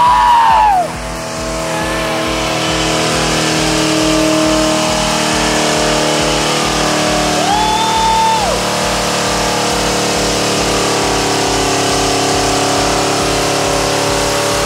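A car doing a burnout, its engine held at steady high revs while the rear tyres spin and smoke. A man yells loudly in the first second.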